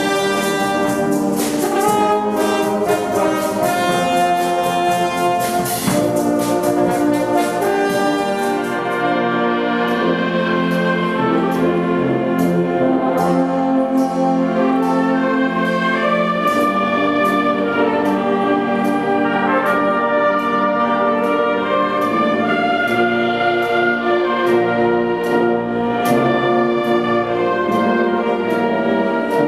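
A large concert wind band of brass and woodwinds playing, with repeated percussion strikes. The playing is fuller and brighter at first and thins out about nine seconds in.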